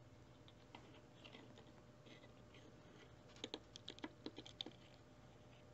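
Faint clicks and light taps from small parts of a graphics card being handled during disassembly, with a quick run of sharper clicks about three and a half seconds in.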